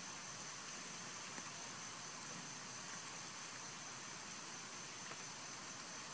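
Steady hiss of outdoor background noise with a faint, thin high-pitched whine.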